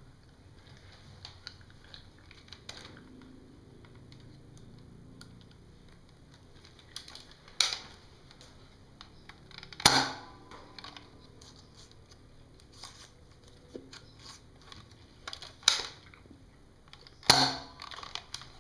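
Nerf Nite Finder, a single-shot spring-plunger dart blaster, being cocked and fired: four loud, sharp snaps with smaller clicks and clacks of the mechanism between them, the loudest about ten seconds in.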